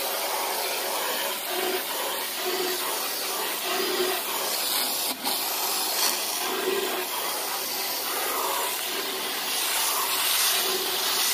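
Garden hose spray nozzle jetting water onto an aluminum pontoon tube, rinsing off toilet bowl cleaner: a steady hiss of spray splashing on the metal.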